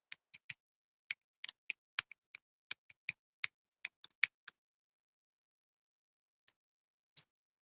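Computer keyboard being typed on: about fifteen sharp clicks at an uneven pace over the first four and a half seconds, then a pause and two more single clicks near the end.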